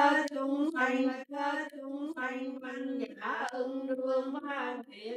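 A woman chanting a Buddhist sutra in a steady, nearly level tone, syllables run together and broken by short pauses for breath.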